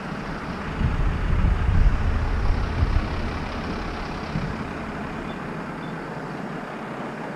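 Motorcycle engine running while the bike rides along, with a louder low rumble for about two seconds near the start.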